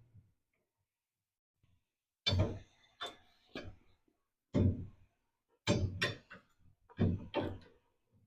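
A series of sharp metallic knocks and clunks from tools and parts being handled while fitting hot rod front suspension parts. About eight come in irregular succession, some in quick pairs.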